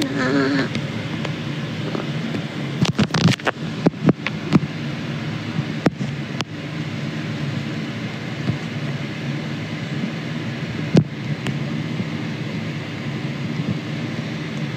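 A steady low mechanical hum with a rushing haze. A flurry of clicks and knocks comes about three to four and a half seconds in, and one sharp knock about eleven seconds in.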